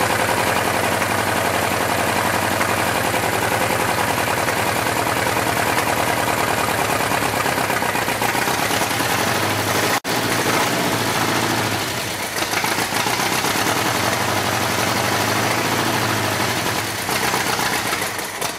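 Chevy 350 small-block V8, swapped into a Farmall H tractor, running through its tall vertical exhaust stacks; the sound drops out for an instant about ten seconds in. The owner takes its running for the sign of one or more burnt valves, with mixture and timing adjustments doing little to help.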